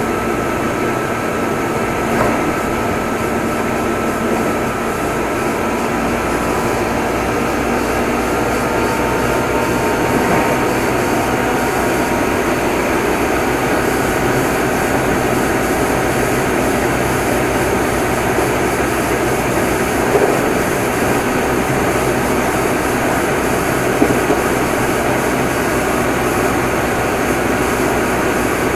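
Meitetsu 6500 series electric train running steadily at speed, heard inside motor car Mo 6461: the constant noise of the traction motors and wheels on the rails, with faint motor tones that slowly drift in pitch and a few small knocks.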